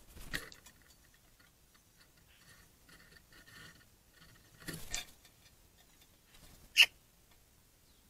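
Eurasian magpies moving about at a terracotta water bowl: a few faint rustles and scuffs, and one sharp click about two-thirds of the way through, the loudest sound.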